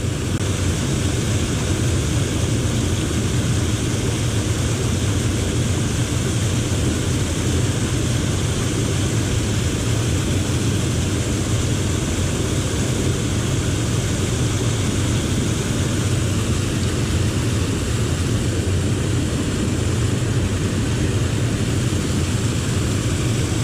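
Steady rushing noise with a strong low rumble underneath, unbroken throughout.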